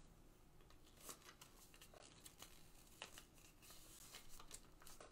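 Faint crinkling and rustling of kinesiology tape being handled and pressed onto a knee, with a few soft scattered ticks over near-silent room tone.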